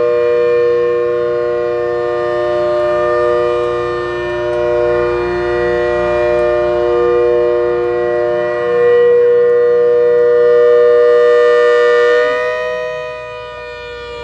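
ACA Hurricane MK1 siren sounding a loud, steady chord of several tones, swelling and fading slowly. About twelve seconds in, its lowest tone glides downward and the sound drops in level while the upper tones carry on.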